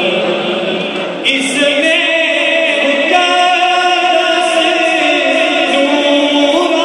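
Unaccompanied devotional chanting of the kind sung at a Milad in praise of the Prophet: voices in long, slowly wavering held notes, getting fuller about a second in.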